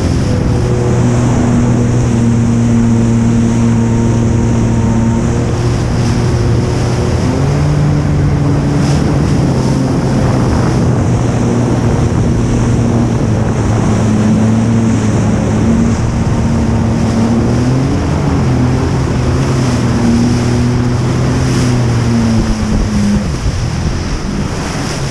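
Jet ski engine running under way, its pitch shifting up and down a few times with the throttle, over rushing water spray and wind buffeting the microphone.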